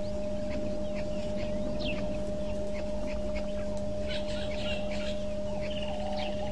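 Wild birds giving scattered short chirps and whistles, with a fast rattling trill near the end. Under them runs a steady electrical hum and a low rumble from the outdoor microphone.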